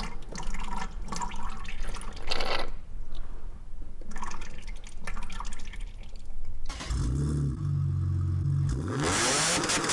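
Power steering fluid dripping and trickling from the open hose ports of a BMW E36's steering rack into a bucket. About seven seconds in, this gives way to a car engine running steadily, then revving up about two seconds later.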